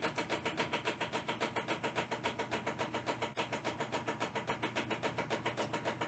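The spin basket of a Zeny portable twin-tub washing machine spins wet sheets. Its motor hums while the machine knocks and rattles in a fast, even rhythm of several beats a second, dancing around as it shakes. This is a sign of a spinner that is off balance or not latched in properly.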